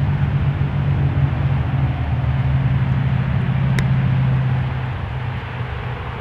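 An engine's steady low hum carrying over the field, easing off about five seconds in. A single faint click comes just before it eases.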